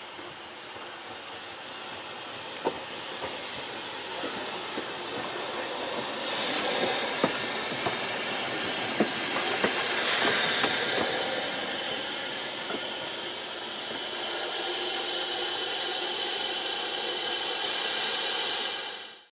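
Narrow-gauge steam locomotive Palmerston, a small tank engine with a tender, drifting past with a steady hiss of steam that grows to its loudest about ten seconds in as it passes close by. Several sharp clicks from the wheels on the track sound in the first half.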